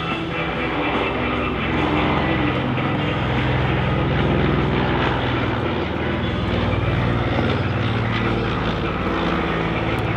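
De Havilland Canada DHC-4 Caribou's twin Pratt & Whitney R-2000 radial piston engines and propellers droning steadily in flight. The drone grows louder about two seconds in, and its pitch shifts slightly.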